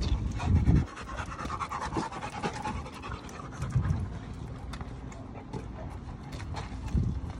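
Large dogs panting close by, with scattered small clicks and a few loud low thuds.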